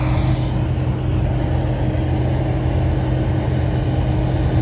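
A vehicle engine running at a steady speed: a constant low hum with a fixed tone, no revving or change.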